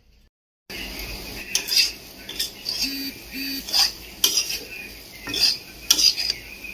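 Spatula stirring potato pieces frying in oil in a pan, clinking and scraping against the metal at irregular intervals over a steady frying hiss. It starts suddenly just under a second in.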